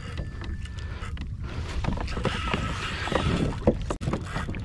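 Handling noise on a fishing kayak while a hooked fish is played: irregular small knocks and clicks from the rod, reel and hull over a steady low rush of water and wind.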